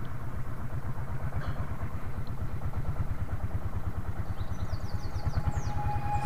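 Small boat engine running steadily at low speed with a fast, even putter, pushing the wooden boat along calm water.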